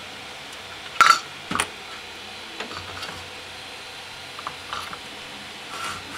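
Metal parts clinking as a 15 mm steel linear rail is lifted off a 3D printer's Y carriages: one sharp clink about a second in, another half a second later, then a few lighter clicks.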